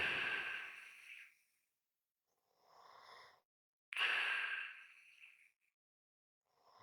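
Slow, heavy human breathing, almost a snore, with a light whistle. Loud breaths at the start and again from about four seconds in, each fading over a second or so, alternate with softer breaths separated by short silences.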